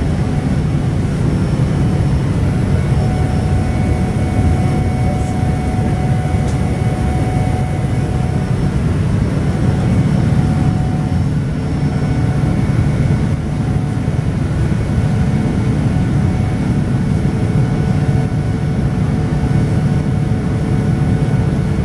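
Steady cabin noise inside a Boeing 787-9 airliner in flight: a low rumble from its Rolls-Royce Trent 1000 engines and the airflow, with a faint steady whine running over it.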